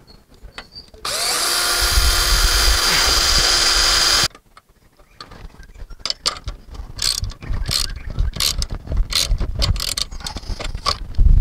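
A power drill spins up and runs steadily for about three seconds, then stops abruptly; it is driving screws to fix the antenna stand's feet to the roof. A string of sharp clicks and taps from the tool and metal fittings follows.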